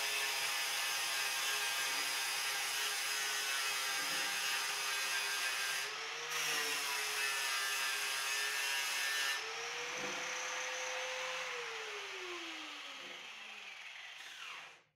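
Angle grinder grinding paint off a steel water-heater tank down to bare metal, with a steady grinding rasp over the motor's whine; about six seconds in it briefly lifts off the metal and bites again. About nine seconds in the grinding stops and the disc spins free, then the motor is switched off and winds down with a falling whine.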